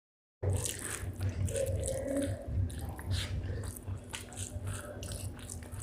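Close-miked chewing and biting of spicy chicken gizzard with rice: a quick run of crisp mouth clicks over a pulsing low rumble. It starts after a brief dead-silent gap at the beginning.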